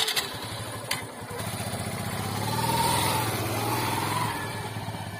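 A vehicle engine starts with a sharp burst and runs as it moves off. It builds up louder about two to three seconds in, then eases slightly.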